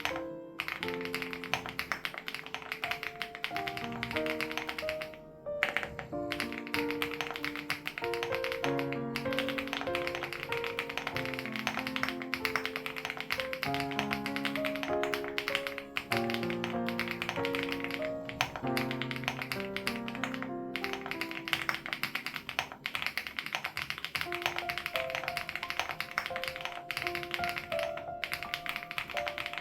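Fast, continuous typing on a CRUSH80 Reboot mechanical keyboard with HMX Hyacinth switches, a steady stream of keystroke clacks broken by a few brief pauses. Gentle background music with held notes plays underneath.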